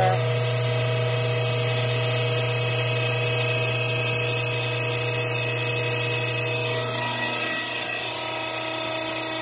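Electric transfer pump motor running with a steady hum, drawing waste vegetable oil through a sediment filter and a 10-micron filter. The low hum eases slightly about seven seconds in.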